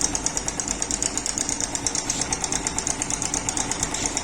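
Yamaha Crux's single-cylinder four-stroke engine idling with a rapid, even metallic ticking rattle: timing chain noise from a failed cam chain tensioner whose spring is broken, leaving the chain slack.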